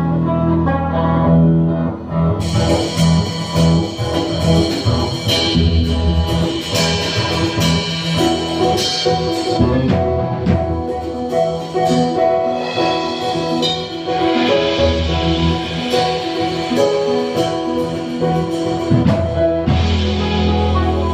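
A band playing instrumental music live, with guitar and drums. The sound gets brighter and fuller about two seconds in.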